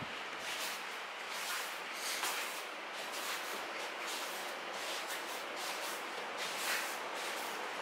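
A child knee-walking (shikko) across tatami mats: soft, irregular swishes and rustles of the cotton gi and knees sliding on the mats, over a steady hiss.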